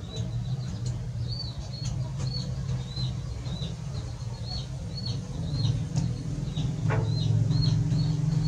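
A steady low hum, with short high chirps repeating about twice a second over it and a single falling squeak near the end.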